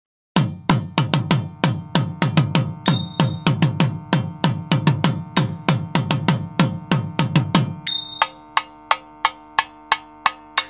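Drum-led percussion music: quick, even drum strokes at about four a second. About eight seconds in they thin out to slower strokes over a held tone.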